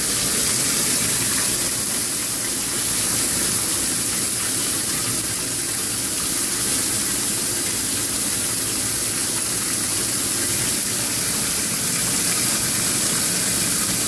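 Water pouring into the tub of a Magic Chef 20-pound top-load washing machine as it fills, a steady rushing hiss.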